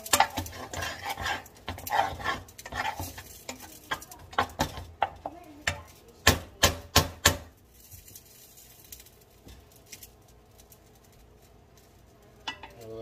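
A spatula stirring and scraping a flour-and-drippings gravy roux in a pot, a quick run of scrapes and clicks against the pot. About six seconds in come several louder knocks on the pot, then the stirring goes much quieter.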